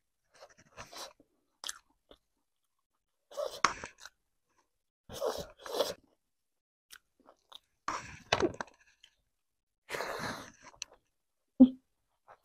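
Close-miked chewing of mouthfuls of hand-rolled rice and fresh leafy greens: wet mouth sounds with occasional crunches, in short bursts a second or two apart.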